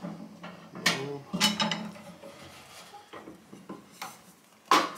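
Metal ammo can's lid and side latch being worked by hand: several sharp metallic clanks and rattles, the loudest near the end.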